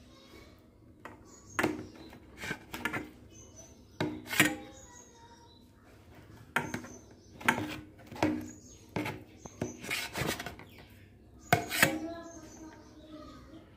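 Kitchen knife clinking and scraping against a steel plate while slicing a soft set milk-and-agar pudding: about a dozen sharp metal clinks at uneven intervals.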